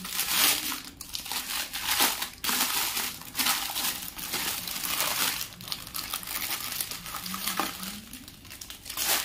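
Clear plastic packaging crinkling and rustling as it is handled and pulled open around a set of bangles. It is louder over the first several seconds and softer toward the end.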